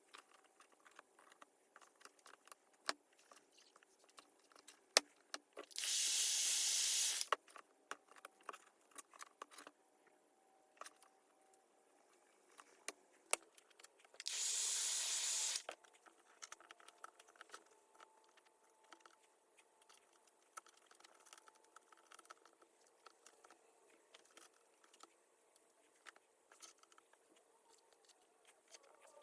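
Light clicks and scrapes of a small tool picking loose glass shards and adhesive off an iPad's frame, broken twice by a steady hissing blast about a second and a half long.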